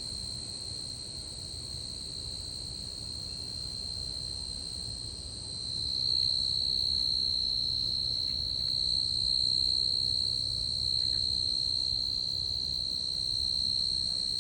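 Tree cricket singing a continuous high-pitched trill on one steady pitch, growing louder about six seconds in.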